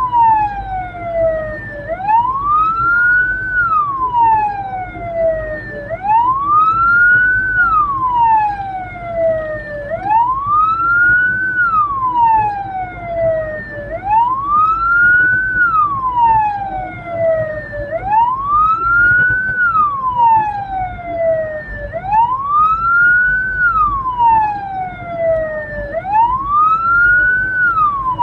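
Hearse siren wailing: each cycle rises quickly and falls slowly, repeating about every four seconds, over a low rumble.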